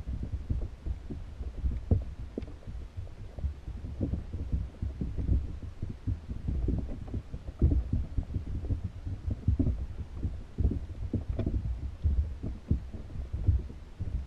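Muffled underwater sound picked up by a GoPro in its waterproof housing: irregular low thumps and rumble of water moving around the trap, with a few faint clicks.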